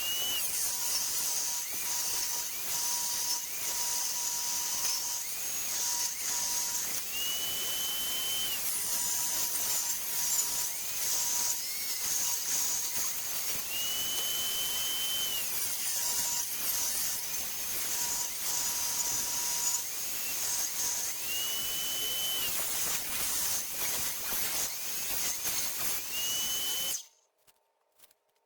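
Electric power saw ripping an old timber beam into narrow boards, running steadily with its pitch rising and dropping again every few seconds as it cuts. It cuts off abruptly near the end.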